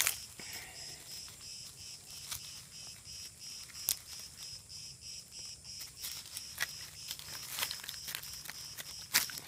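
An insect chirping steadily at about three chirps a second, with irregular sharp cracks and crunches of rotten punkwood being broken apart by hand to free a fatwood core, the loudest cracks at the very start and near the end.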